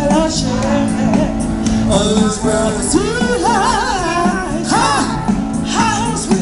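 Live amplified band music from buskers: a singer with wavering, vibrato vocal lines over bass, guitar and a steady beat.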